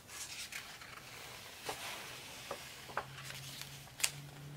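Pages of a hardcover picture book turned by hand: paper rustling and sliding, with a few light taps and clicks as the book is handled.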